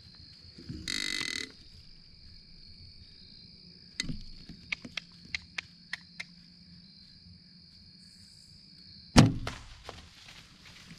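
A bow shot: one sharp, loud crack of the string release and the arrow striking the deer about nine seconds in, a hit the hunter judges sounded good, followed by brief crackling in dry leaves. Before it, a steady high insect drone, a short noisy burst about a second in, and a quick run of light clicks around four to six seconds.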